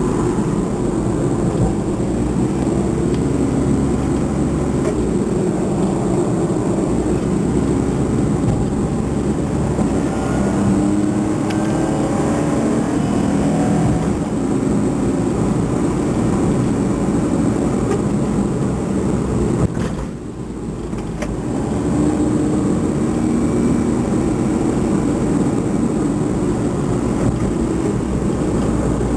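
Car running along a road, heard from inside: steady engine and road rumble with faint engine tones rising and falling. It eases off briefly about twenty seconds in.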